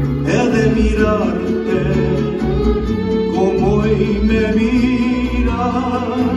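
A male vocalist singing a mariachi song over a live mariachi band of violins, guitars and a plucked bass.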